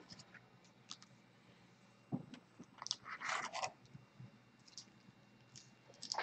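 Faint handling noise from trading cards and a pack wrapper: a few soft clicks, a low thump about two seconds in, and a brief crinkling rustle about three seconds in.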